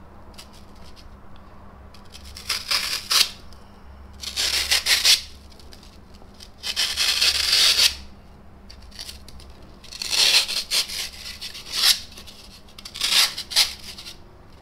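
Snap-off utility knife slicing through a polyurethane foam block in about half a dozen separate rasping strokes, each lasting from half a second to a second and a half, with short pauses between them.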